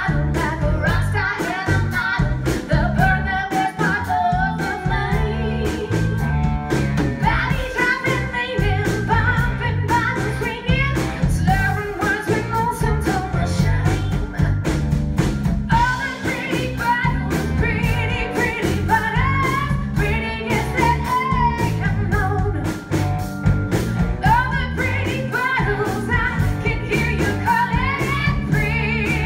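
Live rock-pop song: a woman singing lead with vibrato over a band of electric guitar, bass and drums, with steady drum hits and a full low end.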